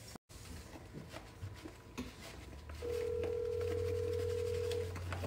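Light clicks and taps of tableware, then about halfway through a kitchen appliance switches on with a steady electric hum that keeps going, and a steady tone sounds over it for about two seconds.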